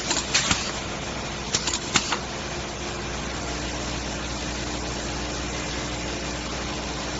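Pneumatic cylinders on a semi-automatic granule weighing and filling machine clacking as they swing the weigh hopper's gates, a quick cluster of sharp clicks in the first two seconds, over the steady hum of the running machine.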